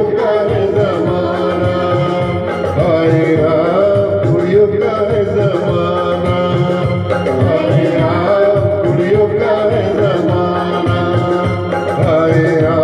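A man singing a Hindi film song into a handheld microphone, over backing music with a steady beat.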